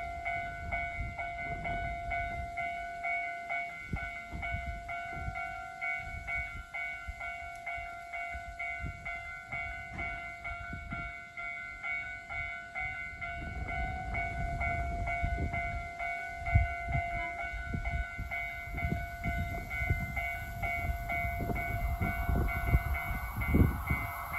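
A railway warning bell rings in a steady, fast repeating pattern while gusts of wind buffet the microphone. Near the end, the sound of the approaching KiHa 183 series diesel express begins to grow.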